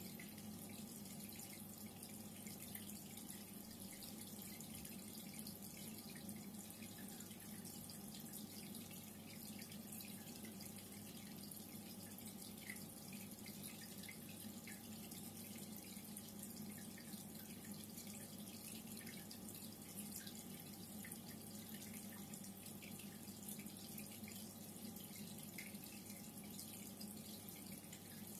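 Reef aquarium water circulation: steady, faint trickling and dripping water with a low steady hum underneath.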